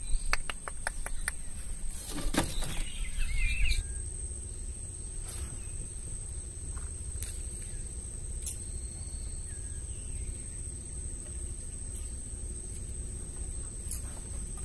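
Birds chirping a few times in the first few seconds over steady outdoor background noise, with a quick run of clicks and a brief louder rustle. After that the background continues alone as a low steady noise with a constant thin high tone.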